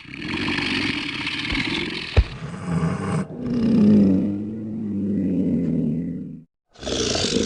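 Monster creature sound effect: a loud hissing roar with a low thump about two seconds in. It gives way to a deeper rumbling growl, then after a brief break another roar starts near the end.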